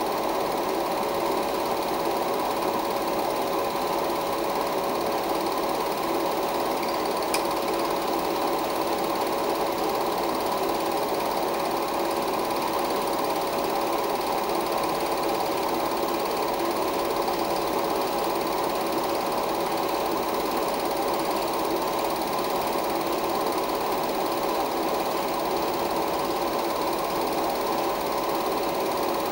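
16mm film projector running, its mechanism whirring evenly with a constant hum.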